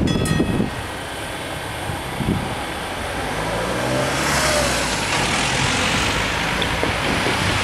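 The level-crossing bell sounds its last strokes and stops about half a second in. After that a road vehicle's engine rises in pitch and a rushing noise grows, which is traffic moving off as the crossing barriers lift.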